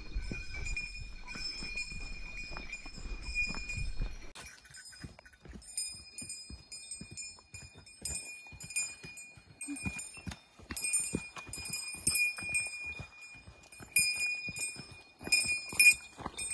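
A small bell on a hiker, a bear bell, jingling in time with the walking, over footsteps on a dirt forest trail; the bell rings loudest in the last few seconds.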